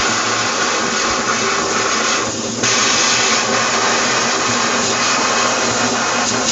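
Oxy-acetylene cutting torch hissing steadily as its oxygen jet cuts through a small piece of steel. The hiss dips briefly a little over two seconds in, then comes back stronger.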